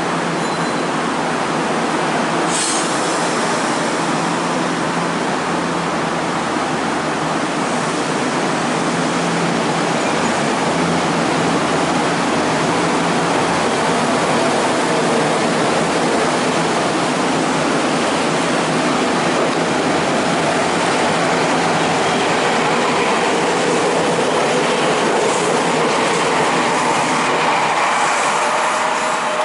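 Semboku Rapid Railway 3000 series eight-car electric train pulling out of the platform and running past, with steady wheel and rail noise. A faint whine rises in pitch as it gathers speed.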